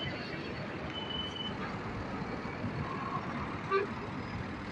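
Steady outdoor noise of road vehicles around a petrol station forecourt. A brief high beep sounds about a second in, and a short sharp sound comes near the end.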